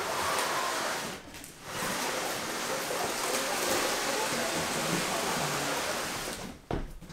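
A steady rushing hiss of noise, spread evenly from low to very high pitches, that drops out briefly about a second in, resumes, and cuts off near the end.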